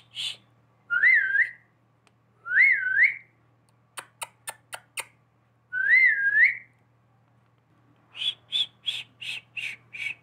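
Rose-ringed parakeet whistling on command: three separate short whistles that rise, dip and rise again. Between the second and third whistles come five sharp clicks, and near the end a quick run of about seven short chirps.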